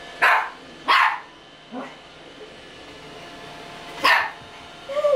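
Toy poodle barking threateningly out of fear at a running robot vacuum. There are five short, sharp barks: two loud ones in the first second, a softer one just under two seconds in, and two more near the end, the last trailing into a short yelp.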